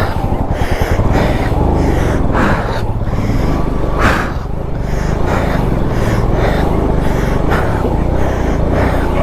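Motorcycle running over a rough, rocky track: a dense steady rumble broken by irregular sharp knocks.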